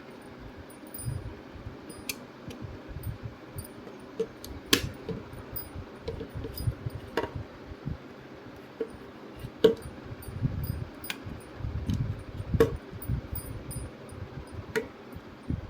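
Parts of a disassembled pocket Bluetooth speaker being handled: scattered light clicks and taps of small pieces, with low dull bumps from handling in the middle stretch.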